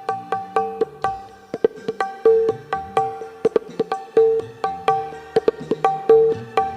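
Dangdut koplo music played for a sound-system check: a kendang hand-drum pattern of sharp, ringing, pitched strokes, several a second.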